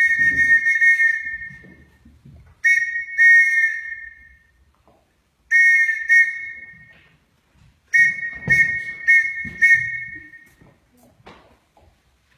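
A whistle sounding Morse code: short and long blasts of one steady high pitch, in groups separated by clear pauses between letters. There is a long blast first, then two pairs of blasts, then a run of four near the end.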